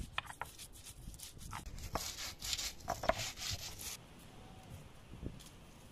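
Stone roller scraping back and forth over a grooved stone grinding slab (sil-batta), crushing dry spices and chillies in irregular gritty strokes. About four seconds in, the strokes stop and the sound drops to a faint background.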